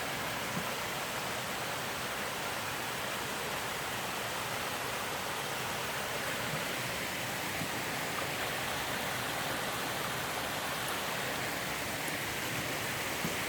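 Creek water running, a steady rushing.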